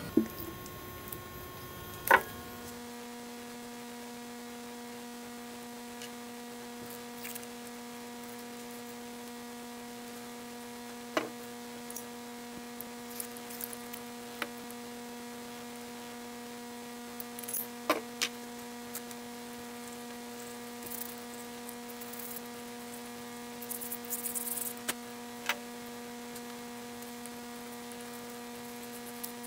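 Steady electrical hum, one low tone with a stack of higher overtones, with a few sharp clicks and short scrapes from parts being handled.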